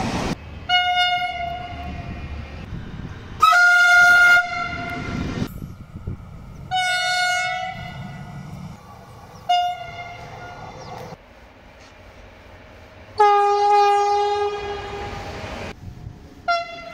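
Italian passenger trains sounding their horns: about six short single-tone blasts from different trains, one after another, over the low rumble of passing rail cars. The loudest blast comes a bit after three seconds in, and a lower-pitched, longer one comes later.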